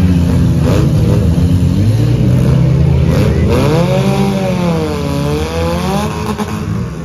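Several four-cylinder demolition derby cars' engines revving, their pitch rising and falling as they push and ram. About halfway through, one engine revs up and down in long swings.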